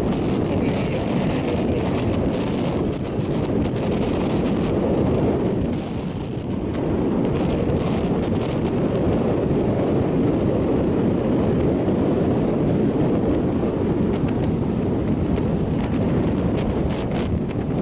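Wind blowing hard across the microphone: a steady low rumbling rush that dips briefly about six seconds in.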